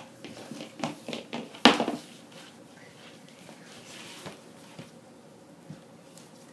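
Toy deer being handled and set down on a hardwood floor: a few light taps and knocks in the first two seconds, the loudest just under two seconds in, then quiet room tone.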